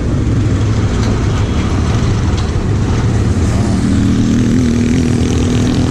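Royal Enfield Interceptor 650's 648 cc parallel-twin engine running steadily while riding, with wind and road rush; a steady, higher engine note comes in about three and a half seconds in.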